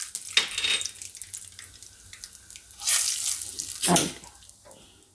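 Hot oil sizzling and crackling in a nonstick wok with mustard seeds, curry leaves and asafoetida in it, a tempering (vaghar) being cooked. It swells in short louder surges, the biggest around three to four seconds in, as a spatula stirs through it.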